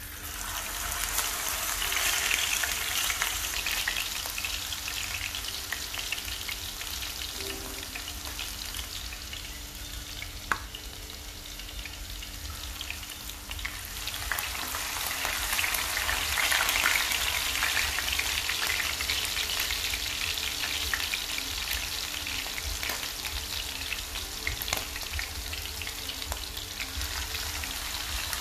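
Pieces of field rat sizzling in hot oil in a frying pan as they are laid in one by one with tongs. The sizzling swells about two seconds in and again around fifteen seconds, with a single sharp click about ten seconds in.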